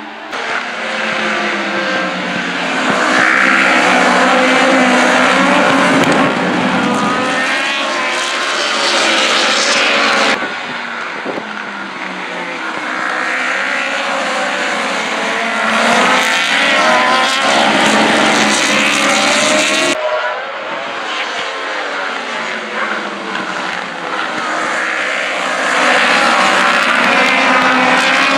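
Several superbike racing motorcycles passing at speed in a pack, their engines revving up and down through the gears. The sound breaks off and changes abruptly twice, about ten and twenty seconds in.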